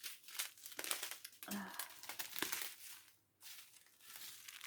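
Small plastic bags of diamond painting drills crinkling and rustling as they are handled, in irregular bursts with a brief lull a little over three seconds in.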